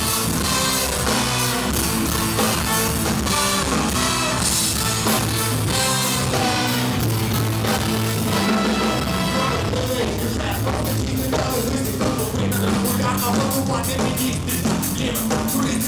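Live ska-punk band playing with a brass section of trumpets and saxophone over electric guitar and drums. A fast, steady drum beat comes in about ten seconds in.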